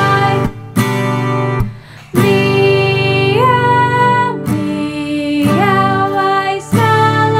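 A woman singing a nursery-rhyme song to her own strummed acoustic guitar, drawing out a sung 'meow, meow' in long held notes, one of which glides up about halfway through.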